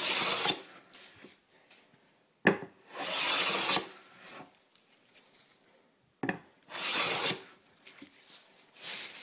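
Four short scraping strokes on wood, each under a second and about three seconds apart, with a sharp knock just before the second and third.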